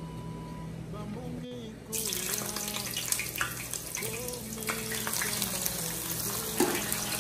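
Onion and salted tilapia frying in hot oil in a pan: a steady sizzle dotted with crackling pops, which gets much louder about two seconds in.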